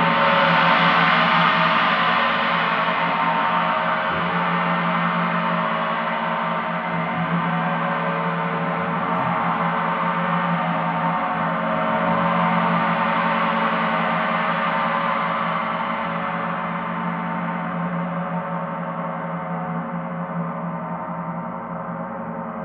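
Paiste planetary gongs sounding as a dense, sustained wash of many overlapping tones with no distinct strikes. It swells just after the start and again about halfway through, then slowly fades.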